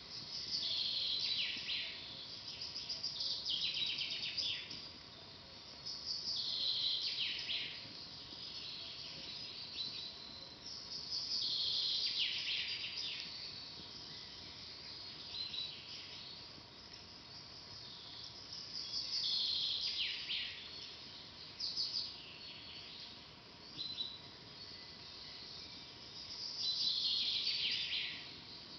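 A songbird repeating a short, falling, trilled song every few seconds over a soft steady hiss, with a few sharp pops from a crackling campfire.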